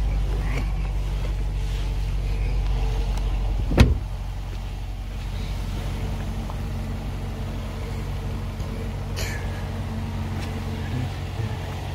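Range Rover Sport idling steadily while its driver's door is opened and then shut with a single sharp thud about four seconds in, after which the engine is heard more quietly from outside. A brief high hiss comes a little after nine seconds.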